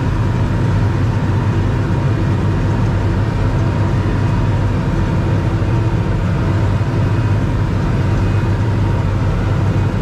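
Tractor engine running steadily under load while pulling a Massey Ferguson big square baler through straw, heard as a constant low drone from inside the cab.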